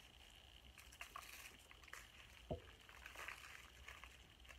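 Near silence with faint handling sounds of food being picked at by hand, and one short sharp click about halfway through.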